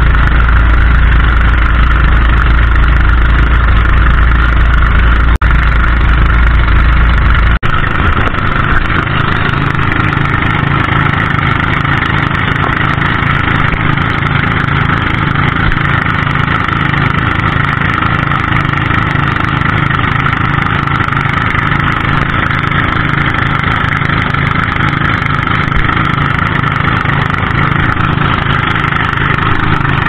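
Outrigger boat's engine running steadily at cruising speed, heard from on board. Wind rumbles on the microphone for the first seven or so seconds, then cuts off sharply.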